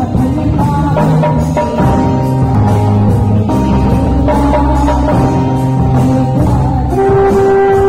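Live song: a woman singing into a microphone over keyboard and drum kit accompaniment, amplified through stage speakers, with a long held note near the end.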